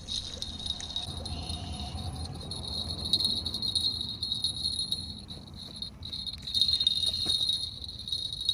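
Small bell on a fishing rod tip jingling steadily as a hooked silver perch twists and shakes on the line, with a short break about six seconds in.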